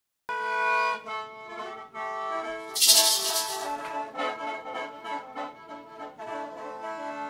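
Instrumental music that starts abruptly, with held chords and a moving melody, and a loud splashy crash lasting under a second about three seconds in.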